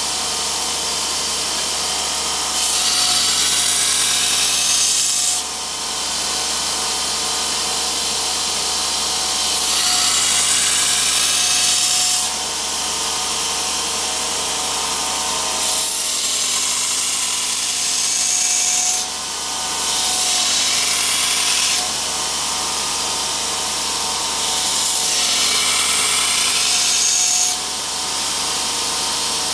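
Belt grinder running while a steel knife blade is ground against the abrasive belt. The hiss of grinding swells and eases with each pass, about every three seconds.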